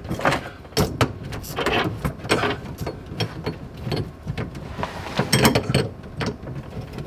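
A wrench tightening the nut of a steel braided dishwasher supply hose onto the hot water shut-off valve: a run of irregular clicks and scrapes.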